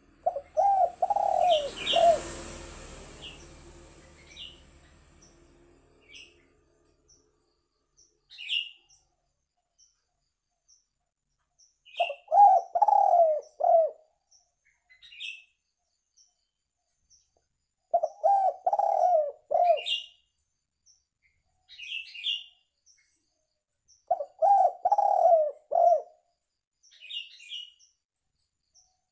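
Spotted dove (tekukur) cooing its three- to four-note phrase four times, about six seconds apart. Small high chirps from other birds are scattered between the phrases. About two seconds in there is a burst of noise that fades over a few seconds.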